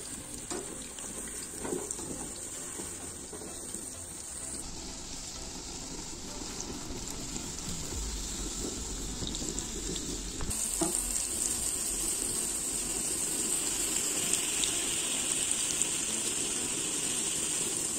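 Whole potatoes deep-frying in hot oil in a cast-iron kazan: a steady sizzle, with a few light clicks of a metal skimmer against the pot.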